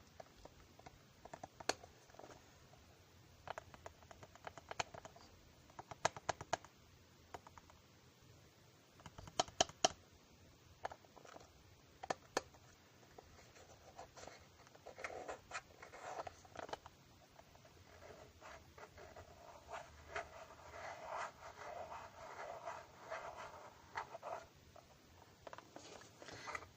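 Close, quiet ASMR scratching and tapping: scattered sharp clicks and scratches, then a softer, continuous rubbing and scratching from about halfway through.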